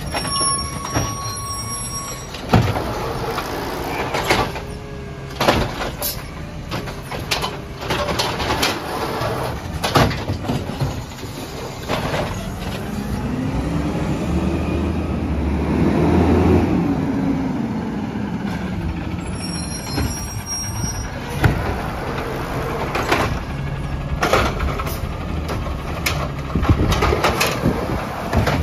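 Peterbilt 320 side-loader garbage truck running on compressed natural gas while its automated arm works the carts: a steady engine sound with several sharp clanks. Near the middle the pitch rises and falls back over a few seconds as the engine revs up and settles again.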